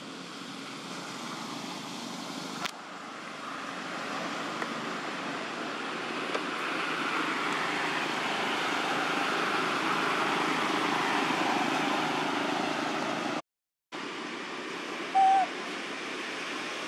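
Outdoor ambience: a steady rushing noise that swells through the middle and drops out briefly twice. Near the end comes a single short, loud tonal call.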